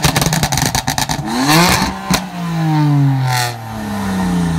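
Car engine revved hard through a loud aftermarket exhaust: a rapid string of crackles and pops in the first second or so, a quick blip of the throttle with one more sharp bang, then the revs falling away.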